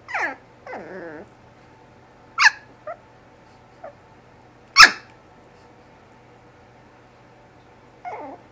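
Shih Tzu puppy yipping and barking in short separate calls, several of them falling in pitch. The loudest is a single sharp bark about midway, and two more falling yips come near the end.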